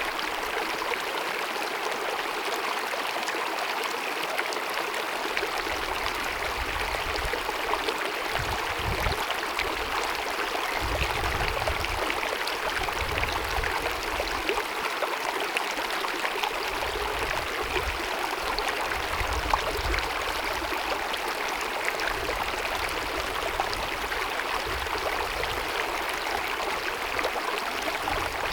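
Glacier-fed mountain meadow stream cascading over rocks: a steady rush of babbling water, with a low rumble that comes and goes now and then.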